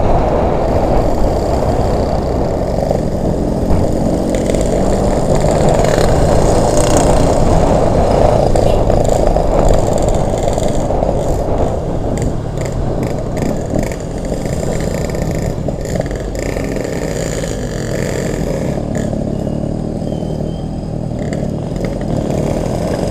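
Yamaha RX-King's single-cylinder two-stroke engine running on the move, heard under heavy wind rush on the microphone. The sound is steady and loud throughout, easing off slightly in the second half.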